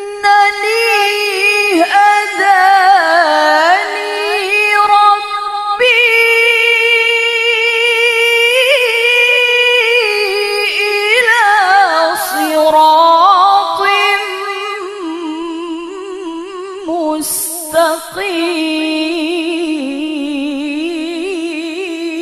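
A woman reciting the Quran in the melodic tilawah style through a microphone, drawing out long ornamented phrases with a wavering, climbing and falling pitch, with brief breaths about six seconds in and near the end.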